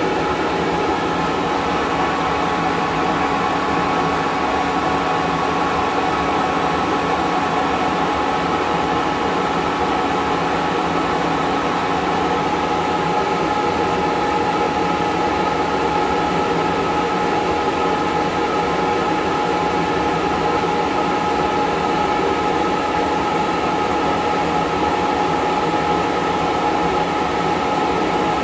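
A KSI SQC-38 CNC Swiss-type lathe running steadily: an even mechanical hum with a few steady high tones over it, holding the same level throughout.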